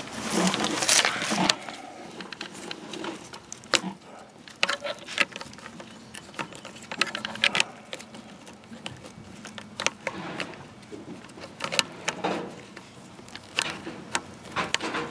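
Irregular clicks, taps and scrapes of metal hose fittings being handled at an outdoor standpipe faucet, with rustling of the hose at first.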